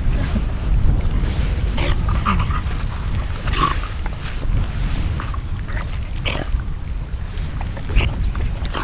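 Wind buffeting the microphone in a steady low rumble, with a dog making short sounds now and then.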